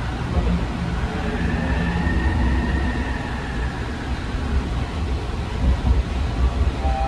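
Driverless AirTrain JFK people-mover car riding the elevated guideway, heard from inside the cabin: a steady low rumble of the running train, with a faint whine that rises and falls over the first few seconds.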